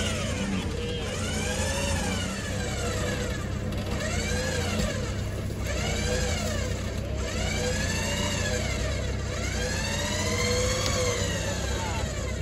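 Off-road 4x4's engine revving up and falling back over and over, a rise and fall about every one and a half to two seconds, over a steady low rumble.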